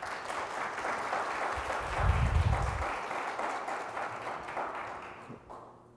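Audience applauding at the end of a lecture, starting abruptly and dying away near the end, with a short low thud about two seconds in.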